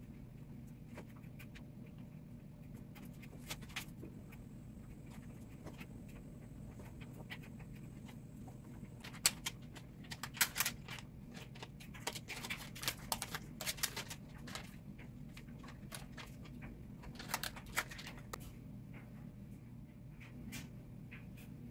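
Clicks, taps and light rustling of a smartphone and its cardboard box and paper being handled by hand, in a cluster about halfway through and again briefly later, over a steady low hum.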